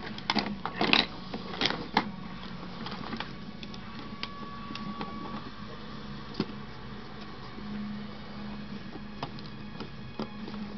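Plastic parts of a Bose portable CD player clicking and rattling as it is handled and its drive assembly is pried apart. There is a quick run of sharp clicks in the first two seconds, then occasional single clicks over a low steady hum.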